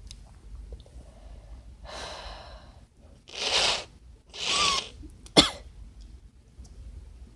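A congested person sneezing: a hissing intake of breath, two loud sneezes about a second apart, the second carrying a thin whistling tone through the blocked nose, then one short, sharp stifled sneeze, the loudest moment.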